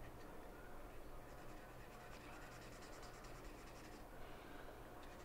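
Marker nib scratching on paper in quick, short back-and-forth colouring strokes, faint, running from a little past a second in until about four seconds.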